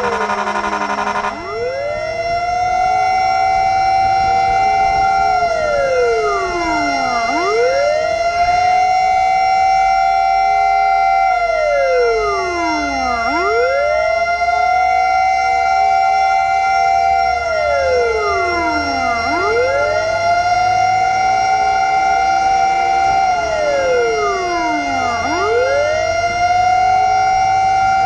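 Fire truck siren wailing in slow cycles, each rising, holding high, then falling, about every six seconds, over a steady tone. A harsh, pulsing horn blast sounds in the first second or so.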